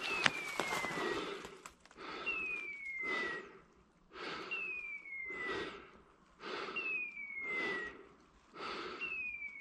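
A dog's beeper collar sounding in point mode, the signal that a setter is holding point. It repeats about every two seconds: a falling whistle of about a second with a rasping screech, then a short pause.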